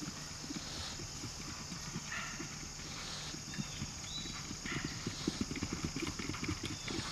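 Ridden horse's hoofbeats on a grass track in a quick, even rhythm, getting louder over the last couple of seconds as the horse comes closer.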